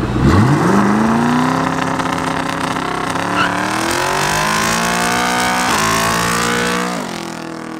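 A car engine revving. It climbs quickly in the first second, holds high while rising slowly for several seconds, then drops off near the end and fades.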